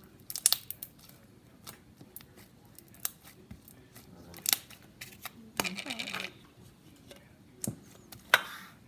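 Slime being squeezed and stretched by hand, giving scattered sharp clicks and snaps with a few short crackly bursts of pops.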